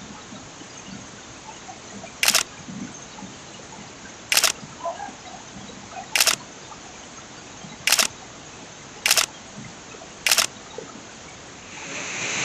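Camera shutter clicks, six of them one to two seconds apart, each short and loud over a faint background hum. Near the end the rush of a waterfall swells in.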